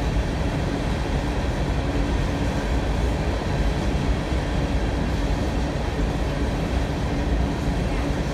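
Freight train of BNSF hopper cars rolling past at steady speed: an even, continuous rumble of steel wheels on the rails.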